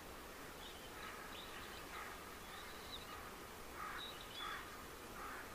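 Birds calling faintly, short high calls about once a second, over a steady low hiss.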